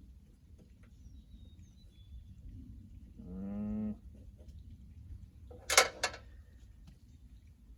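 Two sharp metal clanks about a quarter second apart, typical of steel parts knocked together while handling the sawmill toolbox. Before them, a short hummed 'hmm', and faint bird chirps in the background.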